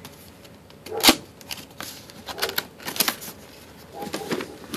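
A small cardboard box being opened by hand: scattered rustles and clicks of cardboard flaps and packaging, the sharpest about a second in.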